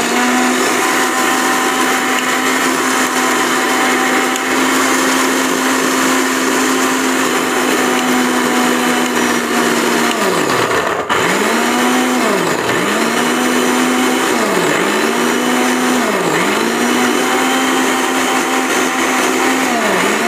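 Zunvolt 750-watt mixer grinder motor running, grinding ginger, garlic and spices into a masala paste. It gives a steady whine for about ten seconds. Then it is pulsed off and on, the whine dropping and climbing back several times.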